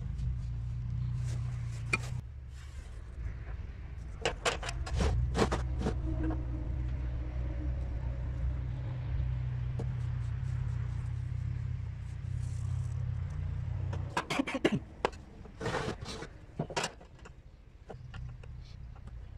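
A motor running steadily with a low hum, which stops about three-quarters of the way through. Over it, sharp clicks and light scrapes of a ruler and marker being laid and moved on a thin metal disc.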